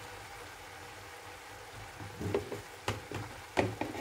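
Meat and onions sizzling steadily in a pot on the stove, with a few short knocks in the second half.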